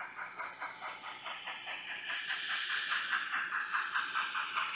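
Steam locomotive chuffing in a steady rhythm, about five chuffs a second, with a hiss that grows louder as it goes.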